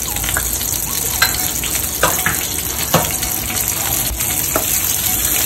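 Whole spices (cumin, pepper, cloves, fennel, ajwain) sizzling in hot oil in an aluminium pressure cooker, as they are fried for tempering. A steady hiss runs throughout, with a few sharp crackles as the seeds fry.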